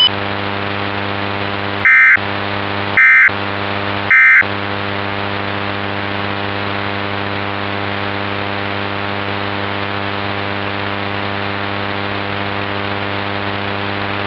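Three short bursts of EAS SAME end-of-message data tones, about a second apart, each briefly cutting through a steady low electrical hum with many overtones that runs on after them.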